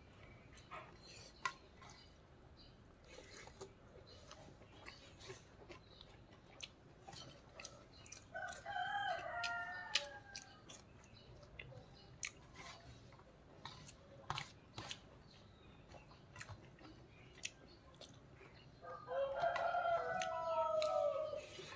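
A rooster crowing twice, each crow about two seconds long, about eight seconds in and again near the end. Between the crows there are soft clicks and chewing sounds from someone eating by hand.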